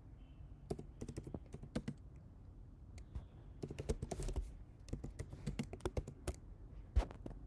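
Typing on a computer keyboard in irregular bursts of keystrokes, with one sharper key press near the end.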